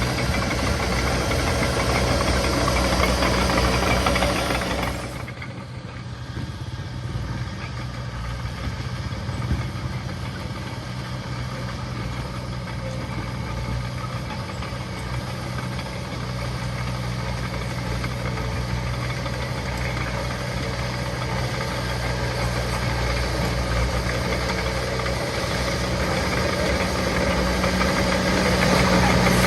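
Diesel engine of heavy earthmoving machinery running steadily. It drops in loudness about five seconds in, then slowly grows louder again toward the end.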